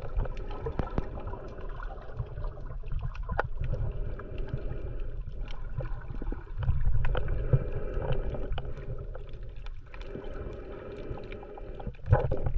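Underwater sound over a shallow coral reef: a muffled low rumble of moving water with many scattered sharp clicks and crackles.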